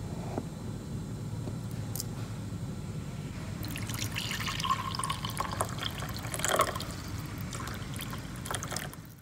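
Coffee poured from a French press into a ceramic mug: a trickling, splashing stream that starts about three and a half seconds in and runs until the end. A low steady hum lies underneath.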